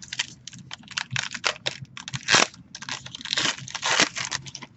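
Trading card pack wrapper being torn open and crinkled by hand: a run of sharp crackles and tearing sounds, loudest about two and a half seconds in and again just before four seconds.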